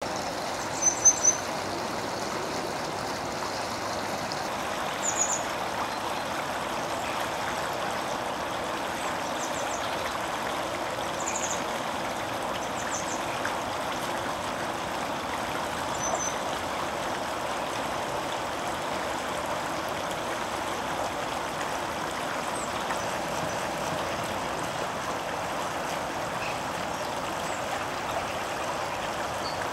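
Shallow river rushing steadily over rocks. A few short, very high calls from a small bird come now and then, the loudest a second or so in.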